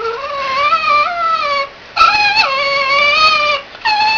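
Jack Russell terrier giving long, drawn-out whining howls: two calls of about a second and a half each, with a third starting near the end, the pitch wavering and dropping within each call.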